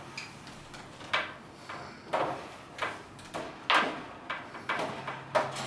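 A string of irregular knocks and rattling scrapes from a bird cage's parts being handled and fitted, about one every half second to a second, the loudest a little before the end.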